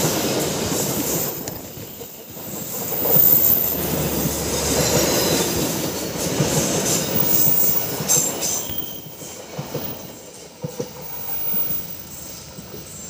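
Passenger coaches of a train rolling past close by, the wheels clattering over the rail joints. The noise drops away after about nine seconds as the train moves off round the curve.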